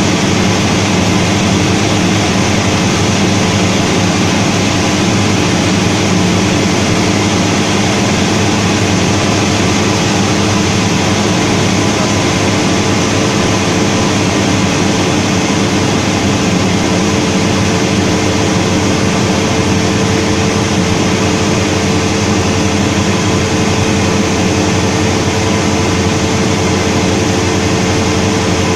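Cessna 172D's six-cylinder Continental O-300 engine and propeller running steadily in flight, heard from inside the cockpit as a loud, even drone. One pitched tone in the hum grows stronger about halfway through.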